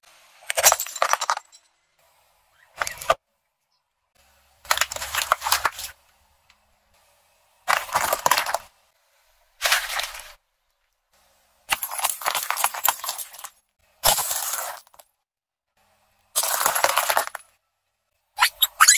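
About nine separate bursts of crunching, cracking and shattering, each a second or so long and cut off by dead silence: objects, among them a chrome piggy bank, a watermelon and a ceramic piece, being crushed under a car tyre.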